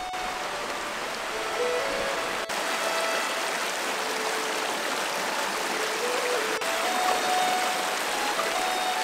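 Steady rushing water of a stream or waterfall under quiet background music with a slow, held melody. The water sound dips for an instant twice, about two and a half and six and a half seconds in.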